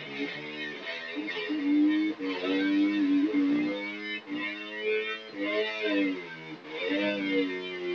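Guitar played with notes that slide and bend up and down in pitch, one held note after another.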